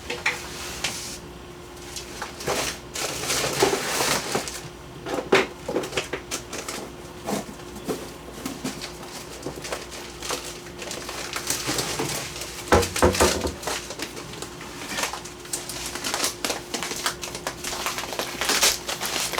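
Irregular rustling, crinkling and light knocks as a plastic bag of rice is searched for and handled, over a faint steady hum.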